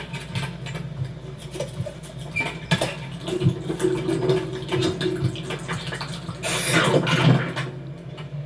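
Animated-film city street sound effects, layered: a steady low hum under many small clicks and knocks, a held tone in the middle, and a loud whoosh of something passing about two-thirds of the way through.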